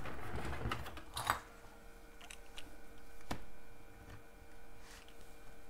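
Paper craft materials being handled: a brief rustle, then a few scattered sharp clicks and taps, the loudest about a second in and again past three seconds.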